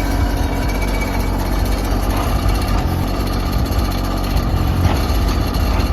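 An engine running steadily, its sound mostly a low rumble.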